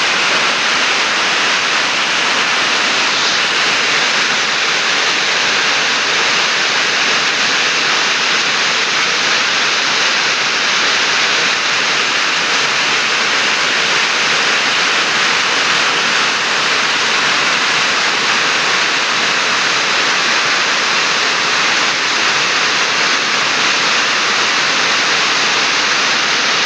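Heavy rain falling, a loud, steady hiss without a break.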